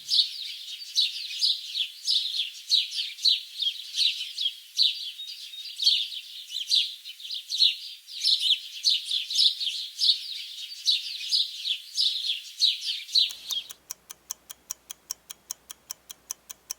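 Pet birds chirping in rapid, repeated high chirps. About 13 seconds in the chirping stops and a steady clock-like ticking of the countdown timer takes over.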